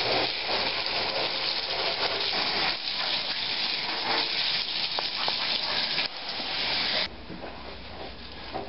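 Running water splashing steadily into a bathtub as a standard poodle is rinsed during its bath, shut off abruptly about seven seconds in.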